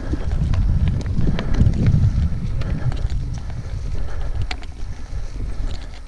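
Wind buffeting the camera microphone as a low rumble, over the rolling of a Yeti SB6 full-suspension mountain bike on a leaf-strewn dirt trail, with scattered sharp clicks and rattles from the bike and tyres.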